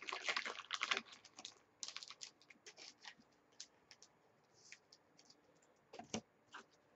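Hockey trading cards being handled: a quick run of crisp clicks and flicks in the first second, then scattered lighter clicks, and a sharper pair about six seconds in.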